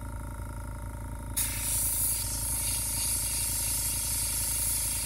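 Airbrush spraying paint: a steady hiss of air switches on about a second and a half in and holds, over a steady low hum.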